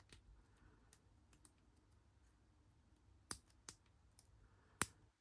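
Small metal clicks of a lock pick and tension wrench working in a small pin-tumbler padlock: a scattering of faint ticks, with three sharper clicks in the second half.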